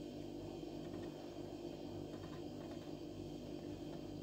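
A steady low hum, with a few faint scrapes of a spatula stirring chicken korma masala as it fries in a pot.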